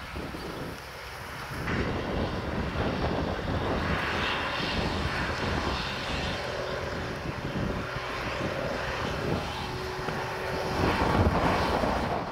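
Diesel engine of a large harvest machine running, a steady drone with rushing noise that grows a little louder near the end.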